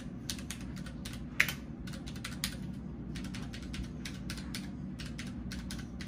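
Mechanical keyboard with Cherry MX Brown tactile switches being typed on, a quick, irregular run of key clacks, several a second, with one louder keystroke about a second and a half in.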